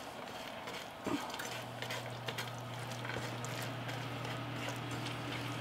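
Red silicone spatula stirring and scraping a moist stuffing mix of breadcrumbs, vegetables, butter and egg around a nonstick skillet, with soft scrapes and a few light taps against the pan. A steady low hum comes in about a second and a half in.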